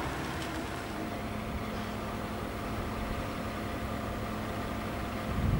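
Heavy vehicle engine running steadily at idle, a low hum with a faint steady tone that comes in about a second in.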